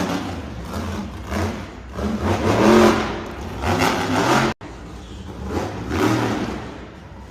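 Monster truck engine revving in repeated rising and falling surges. It cuts off abruptly about four and a half seconds in, then starts again.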